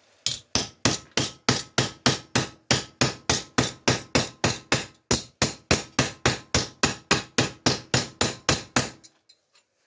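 Steel hammer tapping rapidly on a MIG-welded steel plate resting on the flat anvil of a bench vise: about four even blows a second with a faint metallic ring, stopping about nine seconds in. The weld is being planished: hammering directly on the bead spreads the metal back out to take out the distortion from weld shrinkage.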